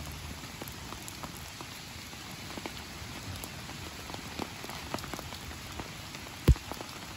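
Steady rain falling, with many small drop ticks scattered through it. A single loud dull thump stands out near the end.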